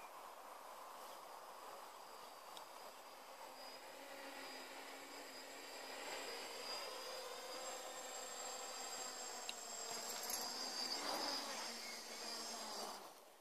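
Cheerson CX-20 quadcopter on an F330 frame, its four electric motors and propellers buzzing in flight. The buzz grows louder and shifts in pitch as the quad comes down to land, then cuts off suddenly near the end as the motors stop on touchdown.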